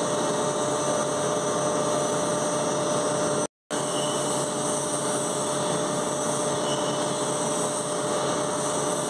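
Steady mechanical drone with a fixed hum from a machine running in the background. It drops out for a moment about three and a half seconds in, then resumes unchanged.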